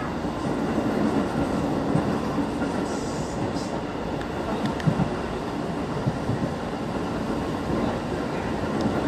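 Inside a former JR 205-series electric commuter train running at speed: a steady rumble of wheels on the rails, with a couple of short knocks about five seconds in.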